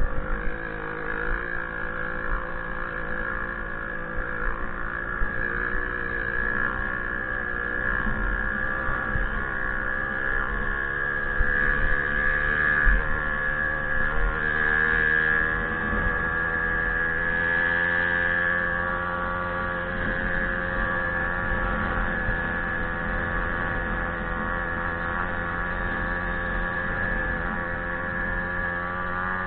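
Small vintage moped two-stroke engine running steadily under load while riding, its pitch drifting slightly up and down with the throttle.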